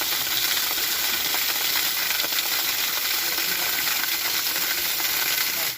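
Waterfall: falling water making a steady, dense rush that cuts off suddenly at the end.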